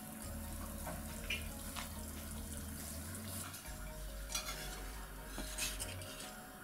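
Spatula and chopsticks clicking and scraping lightly against a frying pan as fish and shellfish are lifted out of the broth, a few sharp clicks the loudest, over a steady low hum.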